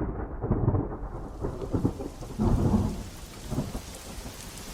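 Thunder rumbling in several swells as rain starts to fall, the rumbles dying away after about three seconds and leaving a steady hiss of rain.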